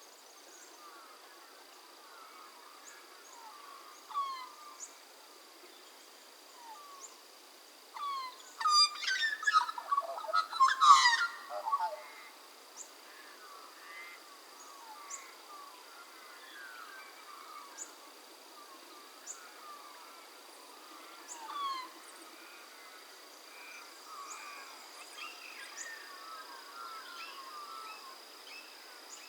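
Australian magpies calling, with a loud burst of warbling, gliding carols from about eight and a half to twelve seconds in. Scattered short bird chirps sound before and after it over a steady high-pitched drone.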